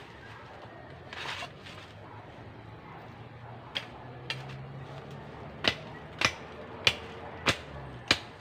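Bolo machete chopping: a short rustle of undergrowth about a second in, two light strokes, then a steady run of sharp cuts about every 0.6 seconds through the second half.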